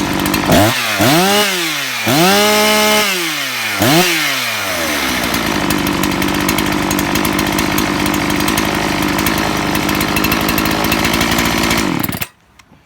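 Ported Husqvarna 261/262XP two-stroke chainsaw idling, then blipped four times, with the third rev held at full speed for about a second. It settles back to a steady idle and shuts off suddenly near the end.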